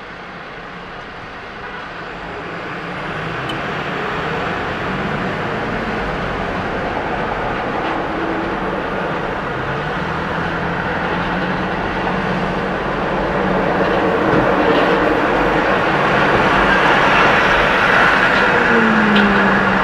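Road and traffic noise from a car pulling away from a stop and gathering speed, a steady rush that grows louder over the first few seconds and again about two-thirds of the way in. A short low tone comes near the end.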